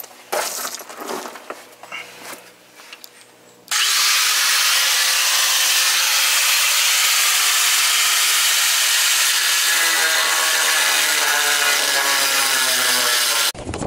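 Corded angle grinder with a cut-off wheel cutting steel to widen the mounting hole for a fifth-wheel landing gear leg. After a few handling knocks, a loud steady grinding starts suddenly about four seconds in and runs on.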